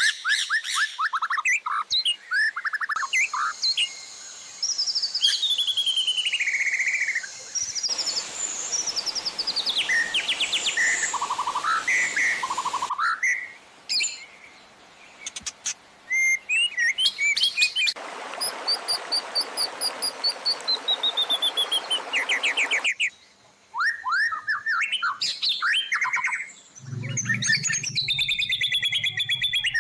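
Recorded songbird song spliced from several clips, as in a white-rumped shama training track: rapid chirps, trills and falling series of whistled notes. The recording cuts abruptly between clips every few seconds, some with a hiss behind them and a low hum near the end.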